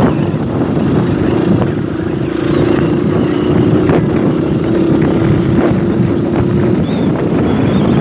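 Motorcycle engine running at a steady pace while riding over a dirt track, mixed with wind buffeting the microphone. The engine note holds steady, then changes about seven seconds in.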